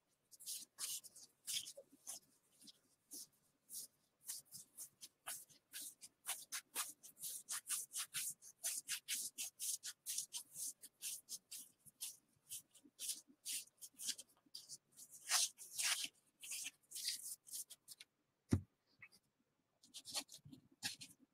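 Gypsy Queen baseball cards being flipped through one after another in the hands, a fast, uneven run of soft flicks and ticks as each card edge slips off the stack. One dull thump near the end.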